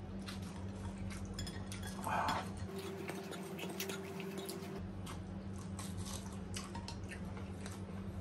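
Close-miked eating sounds: small clicks, clinks of utensils against ceramic bowls and plate, and chewing, over a steady low hum. A short louder rustle comes about two seconds in.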